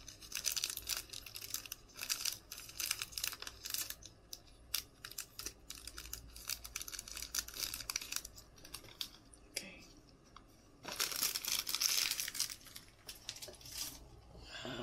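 Clear plastic wrapper of a trading-card pack crinkling and tearing as it is pulled open and the cards are slid out, in bursts with quieter gaps, the longest burst of crinkling about eleven seconds in.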